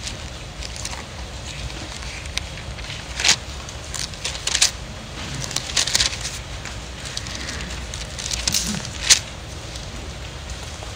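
Bible pages being turned and rustled, a string of irregular short papery crackles over a steady low hum.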